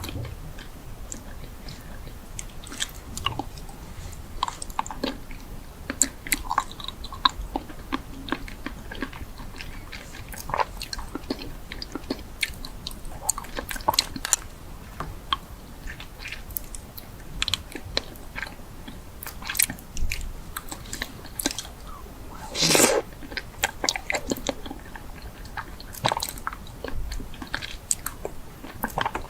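A person biting and chewing crunchy food: irregular crisp crackles, with one louder, longer crunch about three-quarters of the way through.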